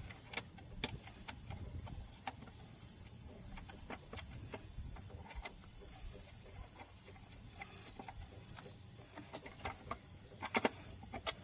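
Scattered light clicks and taps of a distributor cap being seated and its hold-down screws worked in by hand, with a cluster of sharper clicks near the end.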